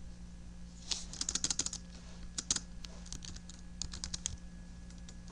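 Computer keyboard typing in short bursts of keystrokes, with a quick run of taps about a second in and a few more scattered keystrokes later.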